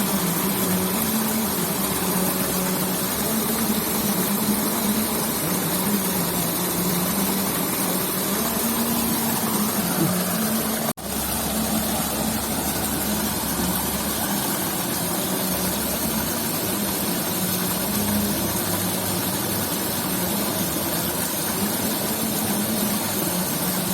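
Steady low hum of a small engine or motor running, over a constant rushing noise; the sound cuts out for an instant about eleven seconds in.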